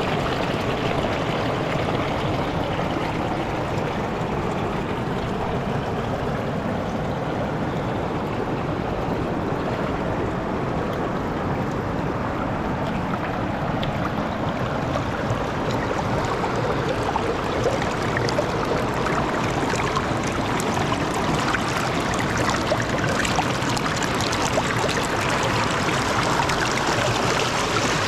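River rapids: water rushing steadily over rocks, growing a little louder and brighter in the second half.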